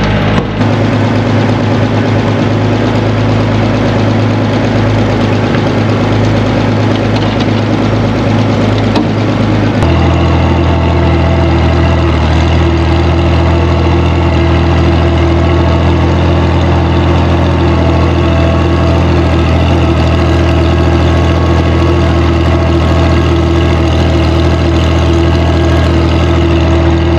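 IH Farmall 460 tractor engine running steadily; its note shifts abruptly about ten seconds in and then holds steady.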